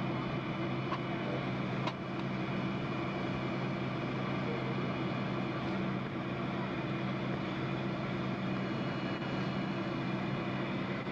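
Jet airliner cabin noise during taxi: the engines run at low taxi power, a steady hum with a faint high whine over a rush of air. There is one faint click about two seconds in.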